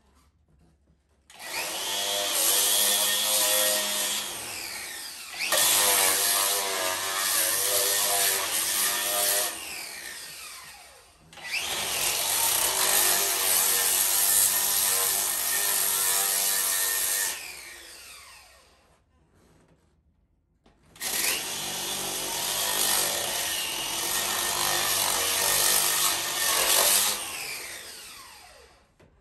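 Angle grinder fitted with a Diamabrush abrading head grinding dried joint compound off a wall, run in several stretches of five to eight seconds. Each run starts with a rising whine as the motor spins up, and winds down with a falling whine when the trigger is released.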